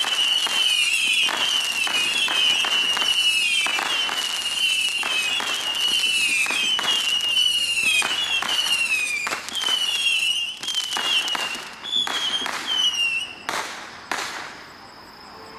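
A 200-shot Saturn missile firework battery firing: a rapid stream of overlapping whistling missiles mixed with sharp pops and bangs. The barrage thins out after about ten seconds and ends with a few last whistles and two bangs about fourteen seconds in.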